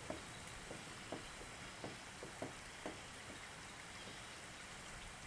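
Small metal clicks and taps from a Great Neck No. 9 coping saw as a new blade's end pin is seated at the handle and the handle turned to tension it, about six clicks in the first three seconds, over a steady background hiss.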